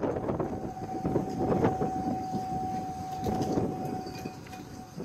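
Large dredging ship working close by: a steady whine held on one pitch over rumbling machinery noise.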